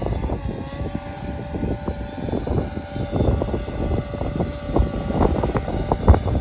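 Propellers of a 10 kg subscale eVTOL model aircraft in flight: a steady buzzing whine of several tones that dips slightly in pitch under a second in. Gusty wind rumbles on the microphone underneath.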